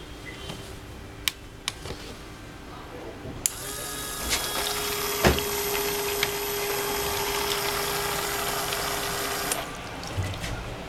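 A few sharp clicks, then the small water pump of a homemade model dishwasher switches on and runs steadily with a hum and the hiss of spraying water for about six seconds before cutting off suddenly.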